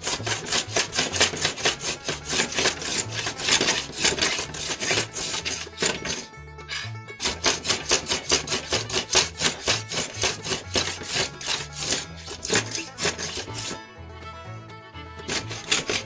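Small brass hand plane shaving along a glued rod blank to take off excess glue, in quick, repeated scraping strokes with two brief pauses. Background music plays underneath.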